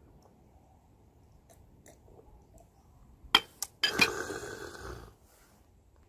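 Two sharp clicks, then a man's loud, raspy throat-clearing exhale after downing a drink, lasting a little over a second.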